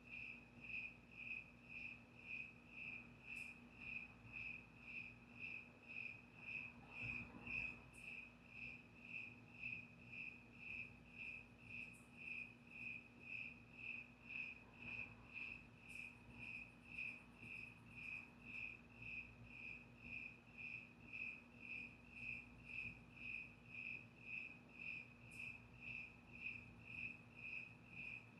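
A cricket chirping steadily at one high, clear pitch, about two chirps a second, faint.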